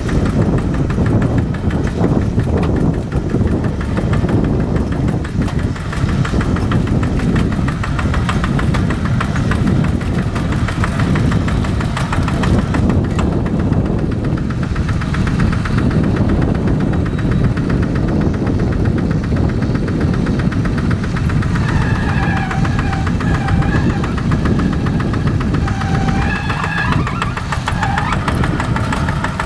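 Tractor diesel engine running steadily under load, with a fast even chug. In the last several seconds a wavering higher tone comes and goes over the engine.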